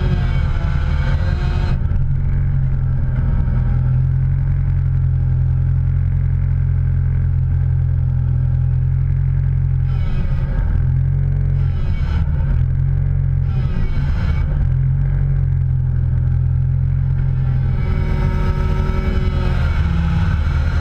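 A motor vehicle running steadily, a low drone with higher-pitched noise swelling briefly about halfway through and again near the end.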